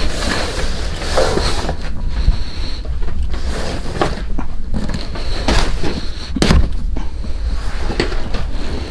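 Irregular knocks, clunks and rattles as RV interior furniture is worked by hand, with handling rumble on the microphone.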